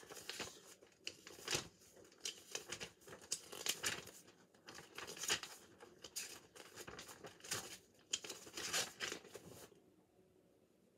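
Sheets of paper rustling and crinkling as they are handled and flipped through, in a run of short rustles that stops near the end.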